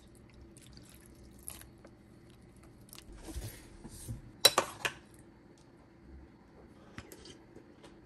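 Faint scattered taps and clicks of tableware, with a few sharp clinks of a metal spoon against a bowl about four and a half seconds in.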